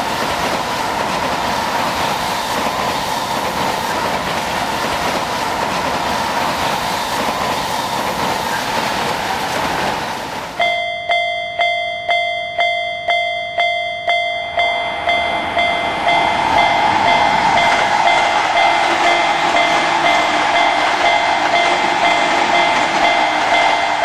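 A train rushing past for about ten seconds, then a Japanese level-crossing warning bell starts ringing at about two dings a second. A few seconds after the bell starts, another train's rushing noise comes in under the bell, which keeps ringing.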